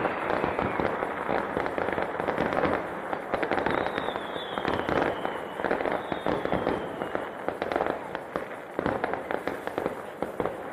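Fireworks going off: a dense run of crackling pops and bangs, with faint descending whistles about four seconds in.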